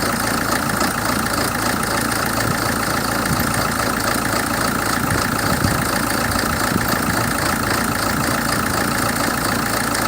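2007 Hyundai Terracan CRDi's common-rail diesel engine idling with a rough, lumpy beat: the sign of its idle fault.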